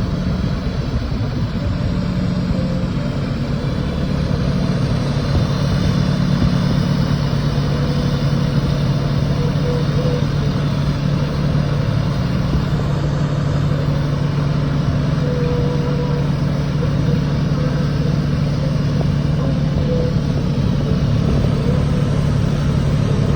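TIG welding equipment running during a root pass: a steady, continuous low buzz with a hissing edge, unchanging throughout.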